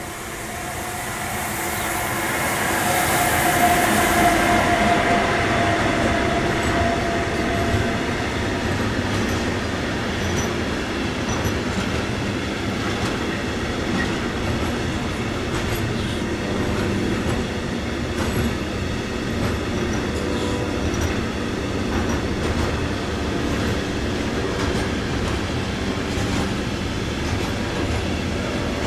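A freight train passing close by. It swells over the first few seconds with a steady whine, then a long run of wagons rolls past, rumbling and clicking over the rail joints.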